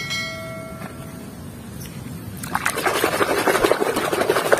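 A short ringing tone that fades within about a second and a half. Then, from about two and a half seconds in, a hand swishes and splashes vigorously through a basin of foamy, muddy water.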